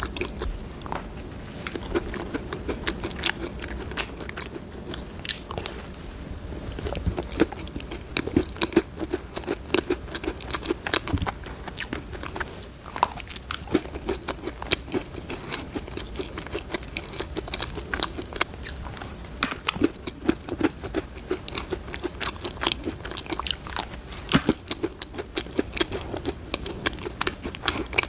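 Close-miked chewing and crunching of a cookie: many sharp crisp crunches and wet mouth sounds, mukbang-style.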